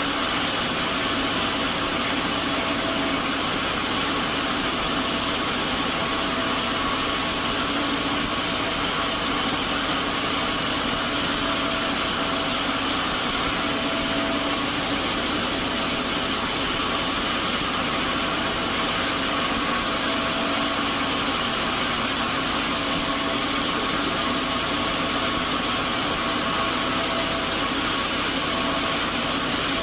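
Woodworking machinery running steadily, a constant motor hum and whir with a faint tone that fades in and out, with no cutting strokes standing out.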